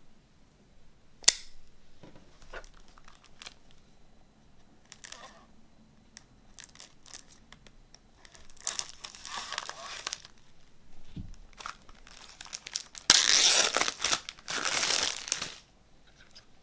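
Plastic shrink wrap being picked at and torn off a CD case: a sharp click about a second in, scattered crinkles and taps, then two long, loud tearing rips near the end.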